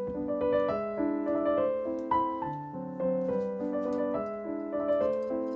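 Background piano music: a gentle melody over sustained chords.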